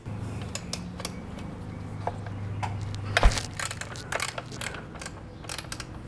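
Ratchet wrench clicking in irregular strokes while loosening a 12mm heat-shield bolt, over a steady low hum, with one louder knock about three seconds in.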